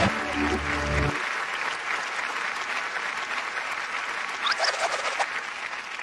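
Audience applauding, with the closing chord of a song cutting off about a second in. A few short rising squeals rise above the clapping near the end.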